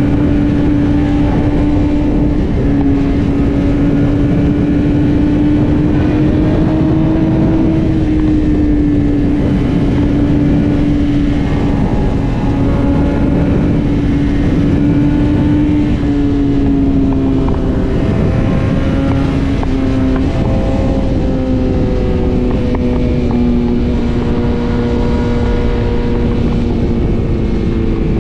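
BMW S1000RR's inline-four engine running at steady high revs at highway speed, under heavy wind rush on the microphone. The engine note rises slightly, dips about eight seconds in, then falls gradually through the second half as the bike slows.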